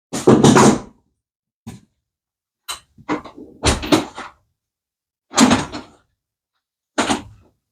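A series of separate clanks and knocks from hand tools and engine parts being handled, about six in all, with a quick run of several around four seconds in.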